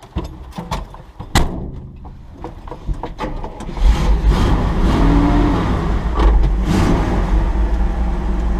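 A few clicks and knocks, then a Dodge pickup truck's engine running and pulling away, growing much louder with a heavy low rumble about four seconds in.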